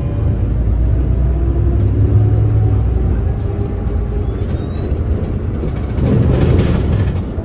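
Engine rumble and road noise heard inside a moving city bus, getting louder for a moment near the end.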